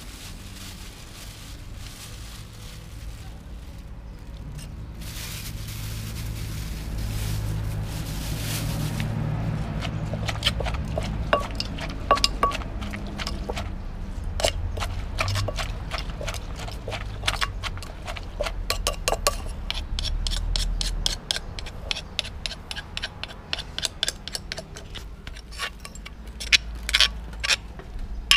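Spoons and cutlery clinking and scraping against plates and dishes, many short light clicks from about ten seconds in, over a low steady hum. A hiss runs for several seconds before the clinking starts.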